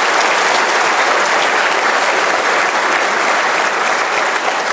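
A large audience applauding, with dense, steady clapping from many hands in a hall.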